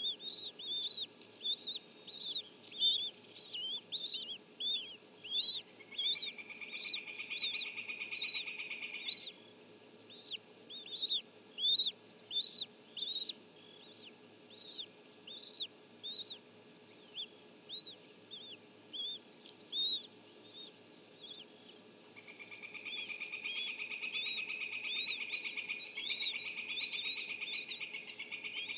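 Bald eagle chicks cheeping as they beg to be fed: short, high, arched peeps, about one or two a second. Twice a longer buzzy trill runs under the peeps for several seconds, the second time from about two-thirds of the way in to the end.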